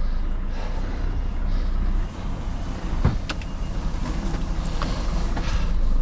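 Truck engine running steadily, with a sharp click about three seconds in.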